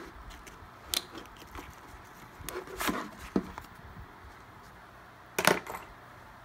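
Cordless drill being pulled out of a nylon tool holster and handled: fabric rustling and scattered plastic knocks, with a cluster of knocks around three seconds in and one sharp, louder knock at about five and a half seconds.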